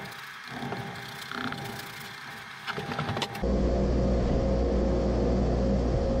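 A few light clicks and knocks, then about halfway through a loud, steady, low machine hum starts abruptly and runs on evenly.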